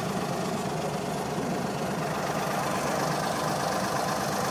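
Small passenger river boat's engine running steadily as the boat moves off across the water.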